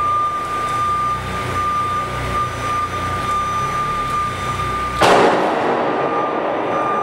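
A forklift runs with a steady high whine. About five seconds in, a stack of heavy Corten steel arcs is pulled over and crashes down in one loud metallic impact that rings on for about a second.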